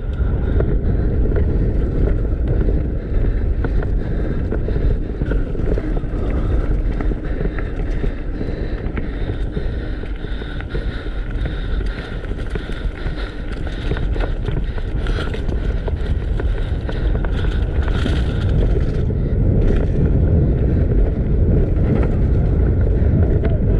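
Wind buffeting the microphone while a downhill mountain bike descends fast, over steady rolling noise with scattered knocks and rattles as it hits bumps.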